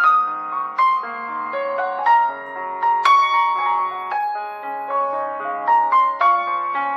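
Background piano music: a gentle melody of struck notes that ring on over lower held notes.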